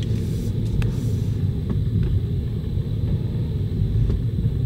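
Low, steady engine and driving rumble heard from inside a car as it rolls slowly across a car ferry's deck toward the ramp, with a few faint clicks.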